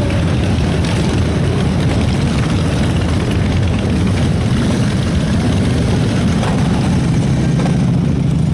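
Steady low rumble of many motorcycle and car engines running together as a long line of vehicles rides slowly in.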